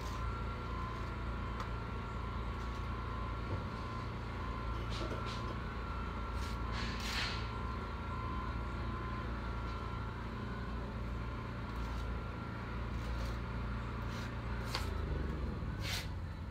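Steady low hum of construction-site machinery running, dropping a little near the end, with scattered sharp taps and scrapes of a steel trowel on clay brick and mortar as bricks are set and tapped down to the line.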